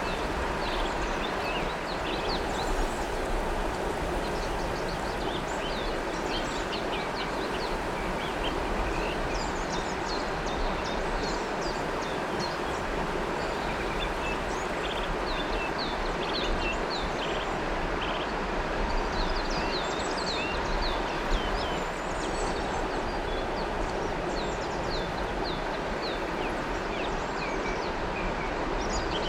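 River water flowing in a steady rush, with many small birds chirping and twittering over it throughout.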